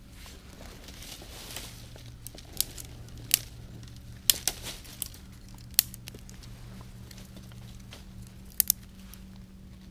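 Leaves and twigs burning in a stainless steel wood gasification stove, crackling with sharp pops about every second.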